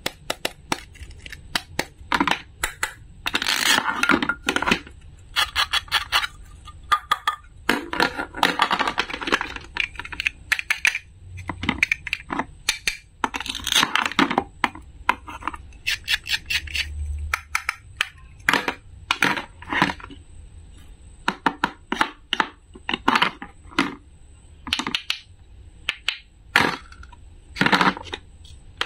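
Plastic toy fruit and a wooden toy knife being handled on a plastic cutting board: many sharp clicks and taps, with several short noisy scrapes as the toy pieces are cut apart.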